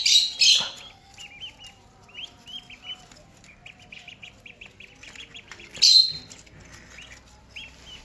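Ducklings peeping rapidly and repeatedly as they are handled, with two louder, harsher bursts, one at the start and one about six seconds in.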